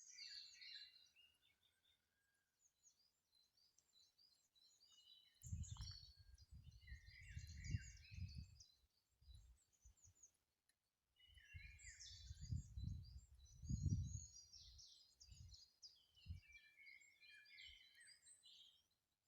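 Several small songbirds singing, with quick overlapping chirps and trills throughout. Two spells of low rumbling, the loudest sound, come in about five seconds in and again from about eleven to sixteen seconds.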